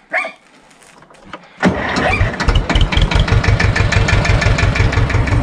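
SAME tractor's diesel engine starting: it catches suddenly about a second and a half in and runs on at a steady idle.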